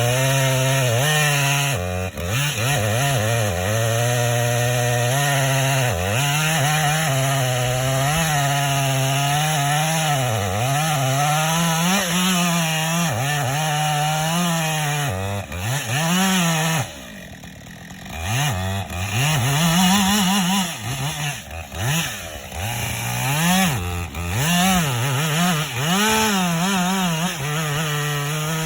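Husqvarna chainsaw with a 20-inch bar cutting into a big red oak, the engine speed sagging and recovering over and over as the chain bites under load. About 17 seconds in it drops back and quietens for a moment, then revs up again in short bursts and goes back into the cut.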